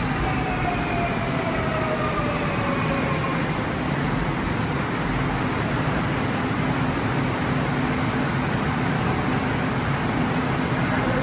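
Seoul Subway Line 4 electric train braking to a stop at the platform, its motor whine falling in pitch over the first three or four seconds, then a steady hum and rumble from the standing train.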